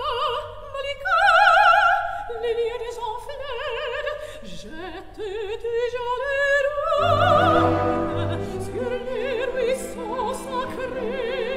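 Operatic singing: long held notes with a wide, even vibrato, several parts at once over an orchestral accompaniment.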